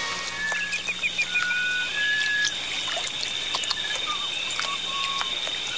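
Short high chirps and whistles, a quick run of chirps about half a second in, with scattered sharp clicks, over a soft trickle of water.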